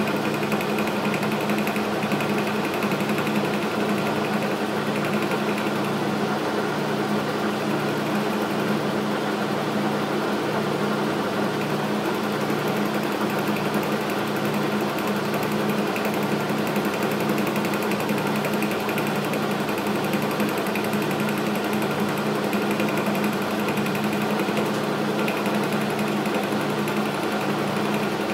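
Logan metal lathe running under power while taking a cut on the chucked part: a steady mechanical hum with a regular pulse about once a second.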